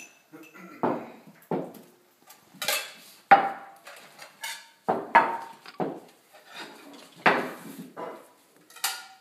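Dishes clinking and knocking as plates are set down on a dining table: a string of separate knocks roughly one a second, a few ringing briefly.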